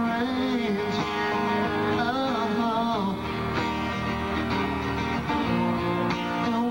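Live unplugged rock band playing a song: strummed acoustic guitars under a sung lead vocal melody.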